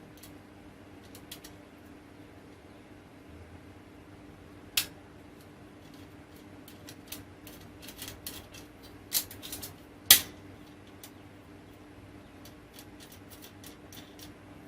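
Small metal antenna parts clicking and clinking as they are handled and fastened with nuts and bolts, with a few sharper knocks about 5, 9 and 10 seconds in, over a faint steady hum.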